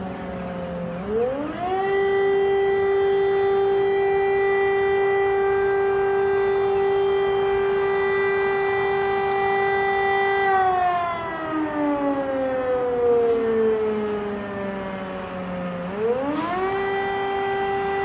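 Ukrainian air raid siren wailing. Its pitch falls, rises about a second in to a long steady tone, slides slowly down from about ten seconds in, then climbs back to the steady tone near the end.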